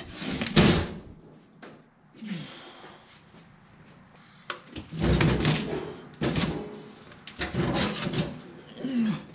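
Heavy 6-volt Trojan lead-acid batteries being worked loose and lifted out of a tractor's sheet-metal battery box. The battery cases scrape and clunk against the metal in several separate bursts.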